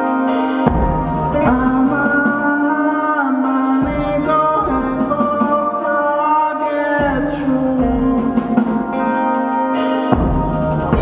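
A live rock band playing a song: electric guitar over bass and drums.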